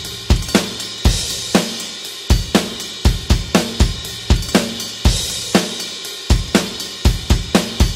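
Rock drum kit playing a steady beat at 120 bpm, kick drum and snare under hi-hat and cymbals, with a cymbal crash about a second in and another about five seconds in, and a quicker run of hits near the end.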